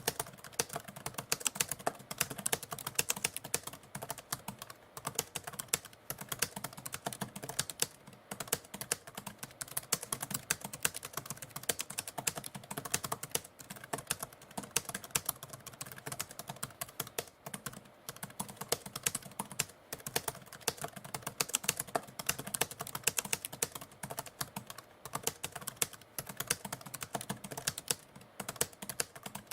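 Typewriter keys clacking in a fast, continuous, irregular run of keystrokes.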